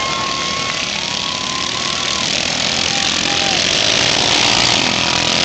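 Racing lawn mower engines running hard in a pack, a dense steady engine noise with the whining pitch of individual mowers bending up and down as they pass in the first couple of seconds.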